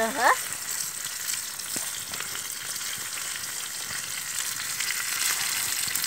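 Floured fish frying in hot oil in a pan over a wood fire: a steady sizzle.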